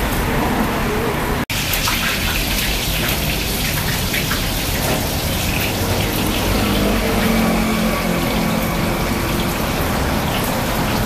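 Steady street traffic noise with a vehicle engine humming through the second half, cut off for an instant about a second and a half in.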